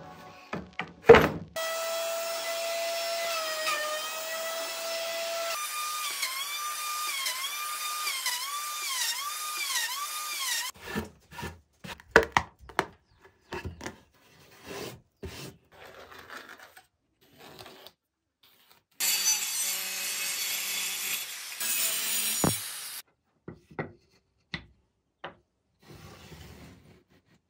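A power tool cutting wood runs in two spells, its motor pitch dipping again and again under load. Then come scattered knocks and taps of wooden pieces being handled and set down on a board, with a few seconds of hiss in between.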